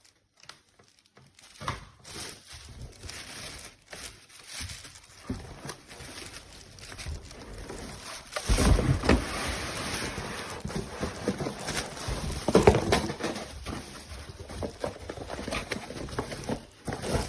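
Packaging and parts being handled while a vacuum cleaner is unboxed: irregular rustling, crinkling and light knocks. Louder bursts of handling come about halfway through and again a little later.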